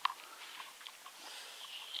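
Faint scattered clicks and rustles, with a sharper click right at the start.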